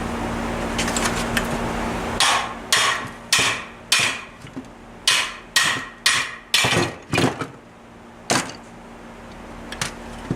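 About ten hammer blows on a Tomos A35 moped engine's crankcase, roughly two a second, each with a short metallic ring, knocking the case halves apart. A steady hum sounds for the first two seconds and stops as the blows begin.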